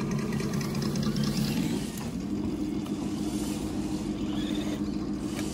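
Radio-controlled scale crawler trucks driving, their motors and gears making a steady low hum that steps up in pitch about two seconds in.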